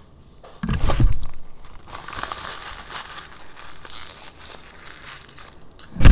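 Paper fast-food wrapper crinkling and crumpling as it is handled, with a loud low bump about a second in and another near the end.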